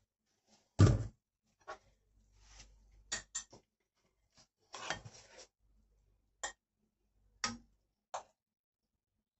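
Kitchen clatter of dishes and a metal spoon: a string of separate clicks and knocks, the loudest about a second in. The last few come from the spoon tapping a stone-coated frying pan while stirring eggplant stew.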